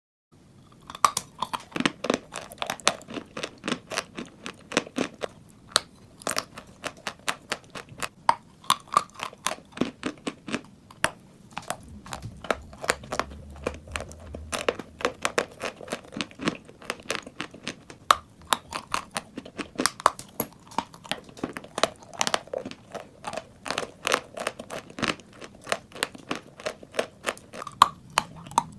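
Close-miked biting and chewing of dry chalk: an irregular run of sharp crunches and snaps, several a second.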